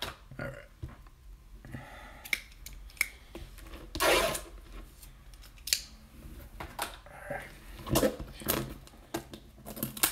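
Scissors snipping and plastic wrap rustling as a sealed trading-card box is cut open, in scattered short clicks and crinkles, with louder rustles about four seconds in and again about eight.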